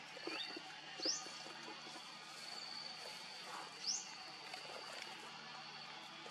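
Outdoor animal ambience: a short rising bird chirp, repeated three times about every two and a half seconds, over a steady high insect trill, with a few faint taps and rustles.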